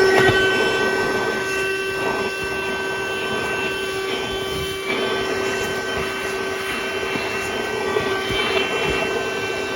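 Handheld 12-volt corded car vacuum cleaner running steadily: a constant motor whine over the rush of air as it sucks up dust.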